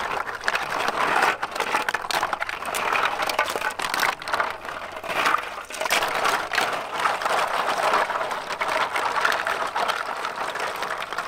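Freshwater snails being scrubbed by hand in a bamboo basket set in a basin of water: a steady clatter of shells knocking and scraping against each other and the basket, with water sloshing and splashing.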